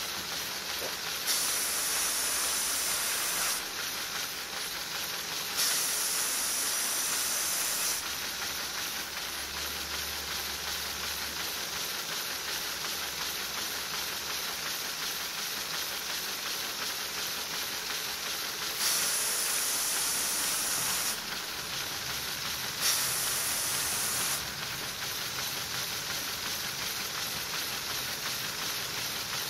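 LEGO pneumatic V8 engine running on compressed air, a steady hiss of escaping air that grows louder four times for about two seconds each.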